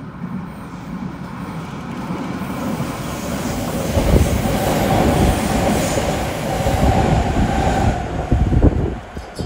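JR West electric rapid train coming round a curve and passing close at speed without stopping. A rumble builds, then loud wheel-on-rail clatter with a steady whine runs for about five seconds and drops off sharply near the end.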